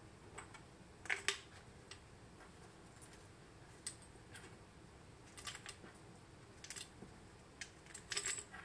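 Small hard items clicking and tapping as they are picked up off a wooden workbench and dropped into a bamboo tube: a scattering of light, separate taps, the loudest two close together about a second in.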